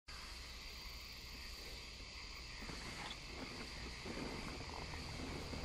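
Night insects chirring steadily, with a low hum underneath that grows a little louder about two and a half seconds in.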